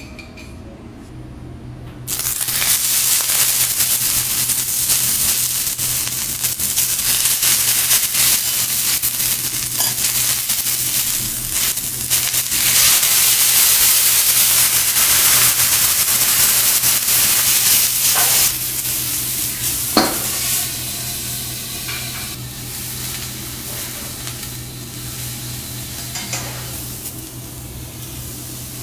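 Halved lobster tails sizzling on a hot teppanyaki steel griddle. The sizzle starts suddenly about two seconds in and stays loud, then drops to a softer sizzle, with a single sharp metal clink partway through the quieter part.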